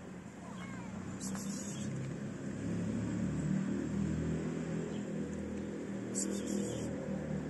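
Low engine rumble of a motor vehicle, growing louder.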